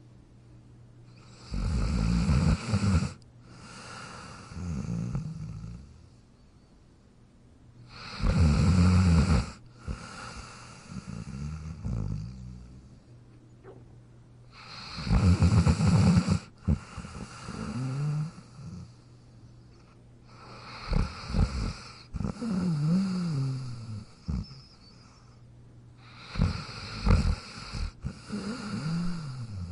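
A sleeping dog snoring in slow, even breaths, five in all, about one every six or seven seconds. Each is a loud rasping snore on the in-breath, followed by a softer, wavering out-breath.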